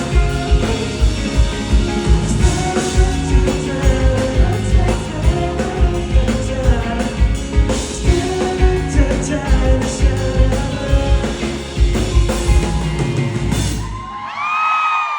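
Live rock band (drum kit, bass and guitars) playing a song's final bars loudly over a steady driving beat, with singing. The band stops about fourteen seconds in and a high cheer rises.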